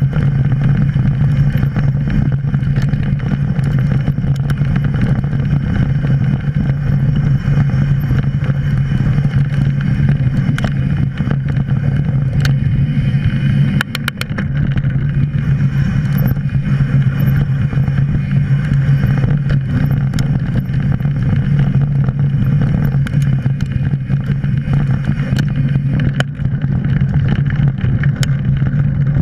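Mountain bike rolling fast along a dirt trail, heard from a camera mounted on the bike: a steady loud rumble of knobby tyres and wind, with occasional sharp clicks and rattles from the bike over bumps.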